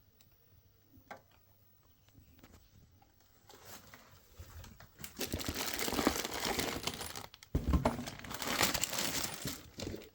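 Plastic packaging crinkling and rustling as it is handled. It starts faint with a few clicks and gets loud about five seconds in, with a low thump about halfway through the loud part.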